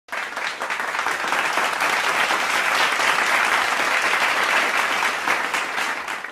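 Crowd applause: dense clapping that starts abruptly and fades out near the end.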